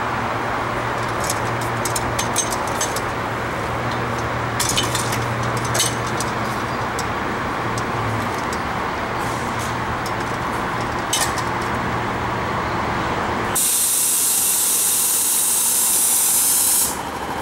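Old streetcar on a turntable: a steady low hum with a few scattered clicks, then about three-quarters of the way through a loud, steady hiss of compressed air being let out of the car's air system for about three seconds, stopping abruptly.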